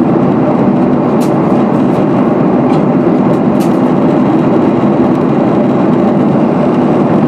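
Steady cabin noise of a Ryanair Boeing 737-800 airliner in flight, a constant roar of jet engines and airflow heard from inside the cabin.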